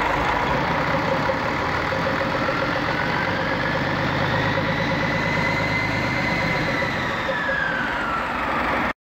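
Overhauled DAF T11120 diesel engine with mechanical injection running steadily on a test stand, with a faint high whine that rises and falls in pitch partway through. The sound cuts off abruptly near the end.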